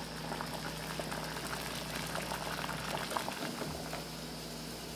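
Water at a rolling boil in a saucepan holding plastic egg cups: steady bubbling with many small rapid pops, thinning out near the end.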